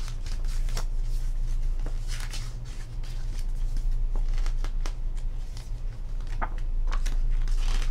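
Pages of a glossy photobook being turned and handled by hand: paper rustling with short flicks and slides, several bunched together as each page goes over. A steady low hum runs underneath.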